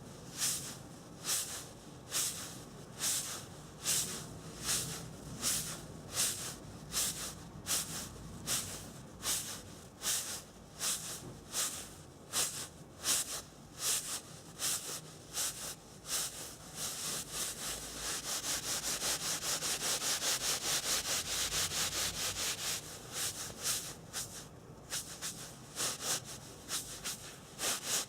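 Close-miked ASMR rubbing sounds: short scratchy strokes at about two a second, quickening in the middle into a fast run of strokes for about six seconds before slowing again.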